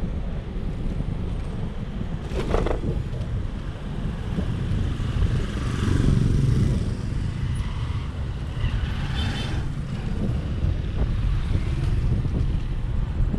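Tazer Mini electric scooter riding along a street: steady wind and road rumble on the scooter-mounted microphone, with a knock about two and a half seconds in. A motorcycle passes about six seconds in.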